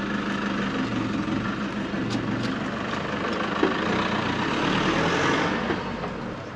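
A vehicle engine idling steadily, with a wider rush of noise swelling about four to five seconds in and then easing off.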